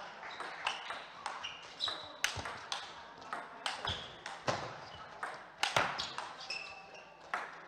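Table tennis rally: the ball cracking off the players' rackets and bouncing on the table in a quick, irregular run of sharp clicks, many with a short high ping.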